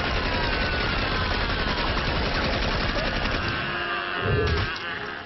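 Rapid, continuous gunfire from a film soundtrack, with high sliding tones over it. It grows louder about four and a half seconds in, then breaks off.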